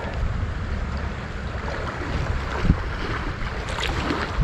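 Wind buffeting the microphone over the steady rush of river water, with one short low knock a little past the middle.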